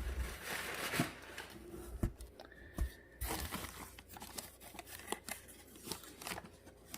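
Cardboard packing pieces rustling and scraping as they are handled inside an opened box, with several sharp clicks and knocks.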